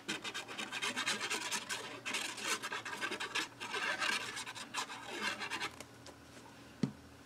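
The nozzle of a fine-tip liquid glue bottle scratching and rubbing across the back of a paper cut-out as glue is spread on it: a quick run of dry, scratchy strokes for about six seconds. One light knock near the end.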